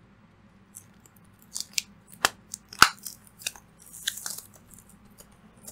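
Plastic wrap and card packaging being peeled off a trading-card box by hand: scattered crinkles and sharp clicks, with a short rustle about four seconds in.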